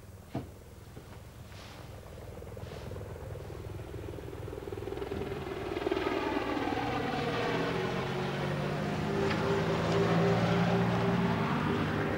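A vehicle engine growing steadily louder over several seconds, with a deeper drone coming in about six seconds in and a steady pulsing hum joining near the end.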